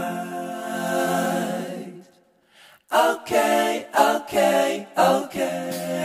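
Background music of unaccompanied singing: one long held note, a brief break of about a second, then a run of short sung phrases.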